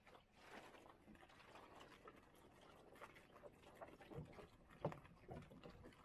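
Faint water lapping and splashing against the hull of a small lug-rigged sailing yawl under way, with a patter of small clicks and a few soft knocks, the loudest about five seconds in.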